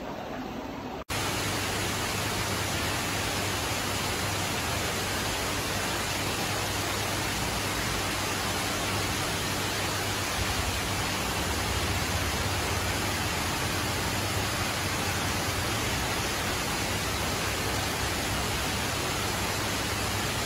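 Steady, even rush of water churning into a koi pond, with a low hum underneath; it cuts in abruptly about a second in.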